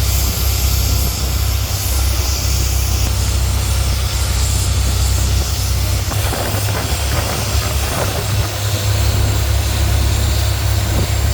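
A boat's big truck engine running steadily under way, a loud unbroken low drone with a high rushing hiss over it.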